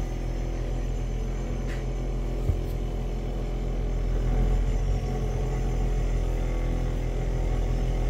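Steady low mechanical hum of a refrigerator running, with one brief tap about two and a half seconds in.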